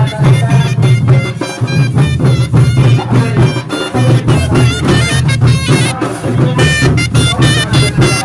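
Loud folk music playing throughout, a wavering melody line over a steady deep bass.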